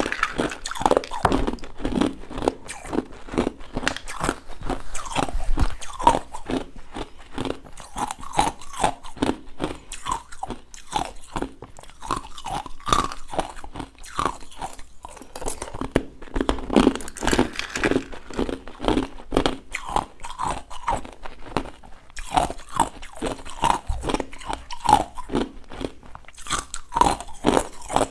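Frozen ice balls being bitten and chewed close to a clip-on microphone: a steady run of sharp, hard crunches.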